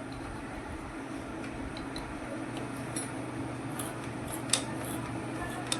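A few light metallic clinks of spanners and tools working on a motorcycle's gearbox side, over a steady low hum.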